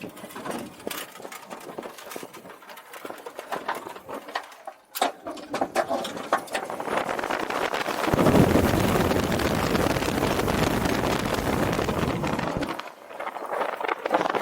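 Roller coaster ride heard from on board: scattered clacking of the train on the track, then a rush of wind noise that swells and runs loud from about eight seconds in as the train speeds up, dropping off suddenly near the end.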